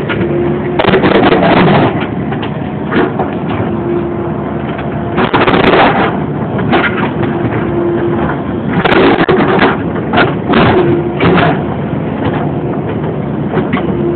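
E50 mini excavator's diesel engine running steadily, broken several times by loud bursts of hammering and crunching, each up to about a second long, as its breaker tears out a concrete pad.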